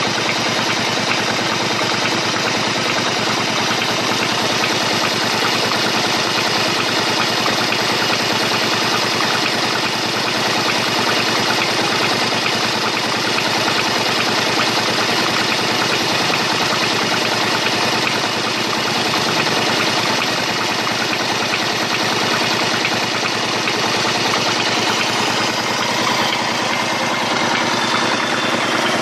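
An engine running steadily at idle, with a fast, even clatter.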